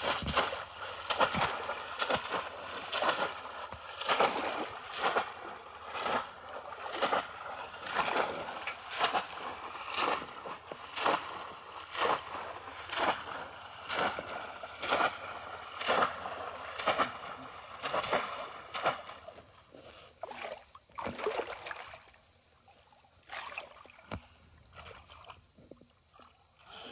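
Bamboo polo fish traps slapped down into shallow pond water over and over, splashing about once a second. Near the end the strikes stop, leaving faint sloshing as hands feel inside the traps for fish.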